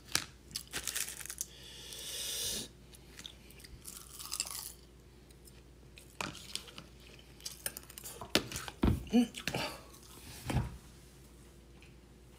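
A person eating close to the microphone: chewing a mouthful of rice, with small clicks and knocks scattered through it and a busier patch of them near the end.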